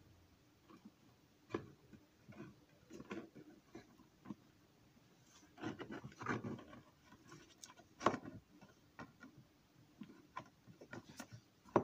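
Faint handling noise from a small model railway building and its parts: scattered light clicks and taps with brief scuffing and rubbing, busiest about six seconds in, with a sharper click about eight seconds in.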